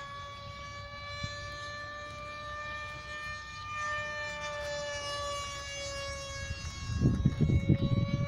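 Whine of the electric model plane's 2200kv brushless motor and propeller in flight, a steady high tone that drifts slightly up and down in pitch as the plane passes overhead. Bursts of low rumble come in about seven seconds in.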